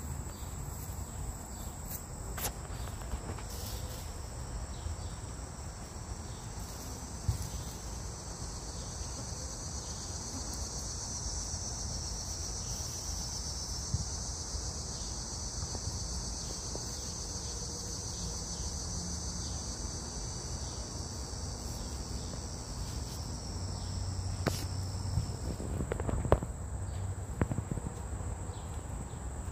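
High-pitched insect chorus droning steadily, swelling through the middle and fading away about 25 seconds in. A few sharp clicks and knocks come near the end.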